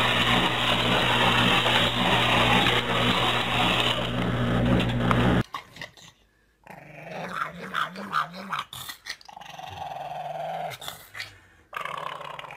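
A loud, steady whir with a low hum from a toy race-car set's motor cuts off about five and a half seconds in. Then a pug growls low and wavering with its face in its food bowl, followed by a higher whine.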